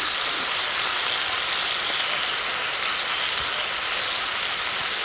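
Chicken, beans and vegetables sizzling in oil on a hot saj, a steady hiss.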